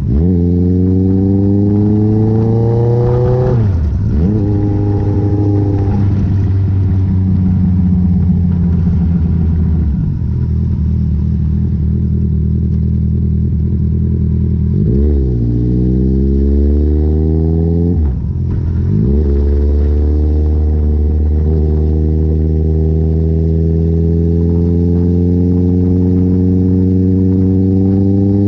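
Motorcycle engine pulling along the highway. Its pitch climbs and drops sharply at each gear change, several times, with steady cruising stretches between and a long, slow rise in revs near the end.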